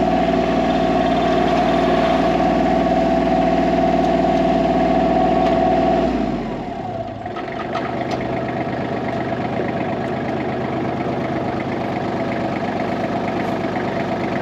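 Compact diesel tractor engine running steadily, with a strong steady whine over the engine note. About six seconds in, the sound drops a little and changes pitch, then runs on steadily at the new note.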